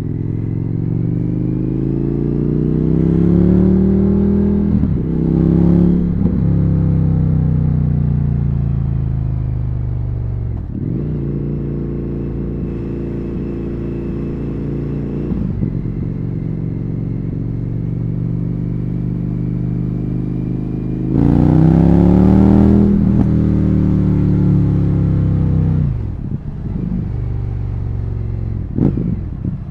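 Indian FTR 1200's 1203 cc V-twin engine and exhaust under way in a tunnel. It accelerates through the gears with brief dips in pitch at the shifts, holds a steady cruise, then pulls hard again about twenty seconds in before easing off.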